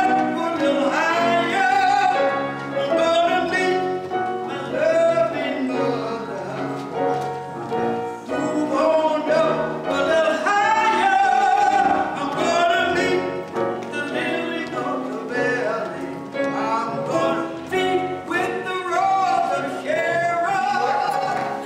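Music: a solo voice singing slow, held phrases over a steady instrumental accompaniment.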